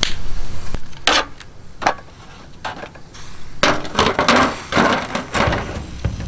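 Disposable aluminium foil tray being set down over food on a charcoal grill with metal tongs. A couple of sharp clicks and crinkles come about a second in, then a cluster of foil crinkling and tongs scraping on the grate in the second half.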